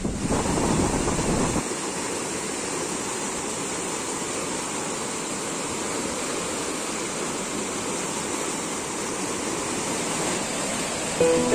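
Cauvery River water rushing over rocks and a low stone weir: a steady rush of shallow rapids, deeper and louder for the first second or so. Music starts near the end.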